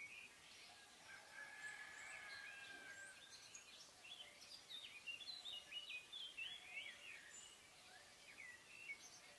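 Faint outdoor birdsong: many short chirping calls, busiest in the middle, with one steady thin note held for about two seconds near the start.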